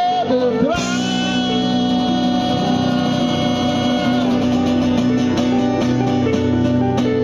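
Live rock band playing an instrumental passage: a long held electric guitar note, then a rhythmic run of notes over bass guitar and drums.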